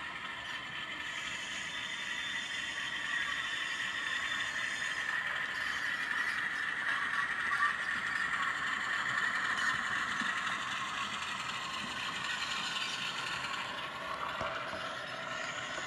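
Model railway train running: a model Class 47 diesel locomotive and its container wagons make a steady mechanical whirr and clatter of motor, gears and wheels on the track, loudest about halfway through as the train passes close.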